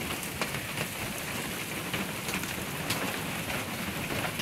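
Heavy hail still falling: a dense, steady patter with scattered sharp ticks of individual hailstones striking.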